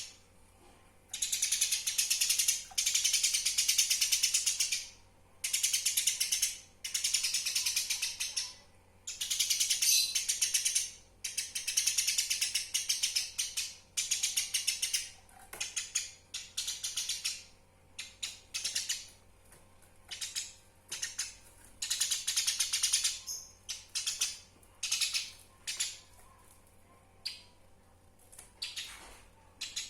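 Eurasian tree sparrow (burung gereja) chattering in bursts of very fast, high chirps, each burst lasting from a fraction of a second to a couple of seconds with short gaps between. This is the sparrow's agitated fighting chatter.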